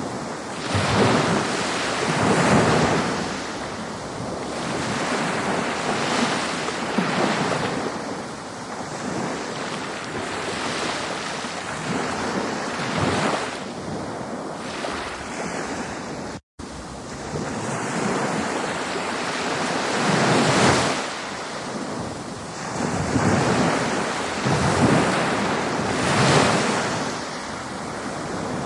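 Ocean surf, waves breaking and washing, swelling and easing every few seconds. The sound cuts out for an instant about halfway through.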